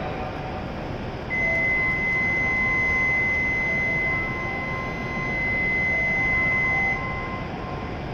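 Door-closing warning buzzer at a shinkansen platform: one steady, high electronic beep that starts about a second in and cuts off about six seconds later, while the train's doors and the platform gates close. Faint intermittent tones and station hum sit behind it.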